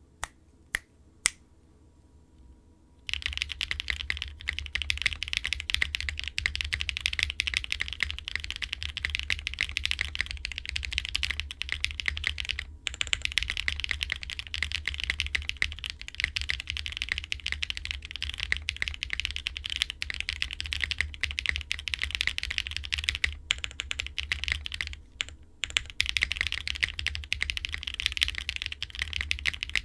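Fast continuous typing on a Wind x65 mechanical keyboard with stock Red Jacket linear switches, a full POM plate, foam and ABS keycaps. A few single keystrokes come first, and steady rapid typing starts about three seconds in, with brief pauses now and then.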